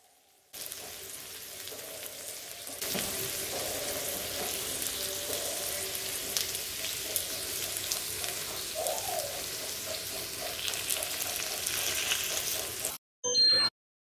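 Chicken sizzling as it fries in oil on a tawa, a flat griddle: a steady hiss that gets louder about three seconds in and stops near the end.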